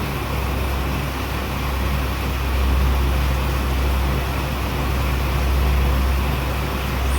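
Steady low background rumble with an even hiss over it, with no distinct events.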